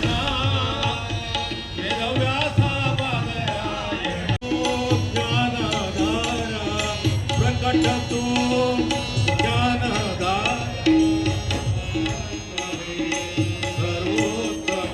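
Devotional bhajan singing to tabla, with a brief break about four and a half seconds in.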